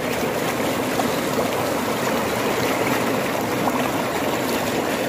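Shallow rocky stream rushing and splashing over stones, a steady full water noise heard from right at the water's surface.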